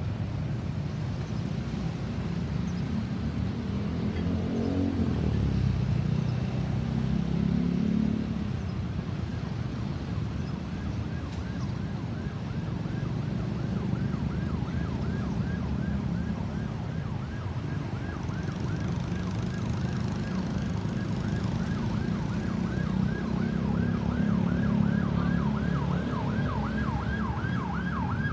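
Road traffic rumbling, with vehicles passing, while an approaching ambulance's siren comes in faintly about ten seconds in as a fast yelp, about three sweeps a second, growing louder toward the end.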